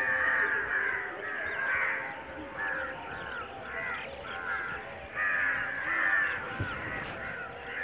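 A large flock of birds calling together as it gathers at its evening roost: a dense, unbroken chorus of many overlapping harsh calls that swells and eases in loudness.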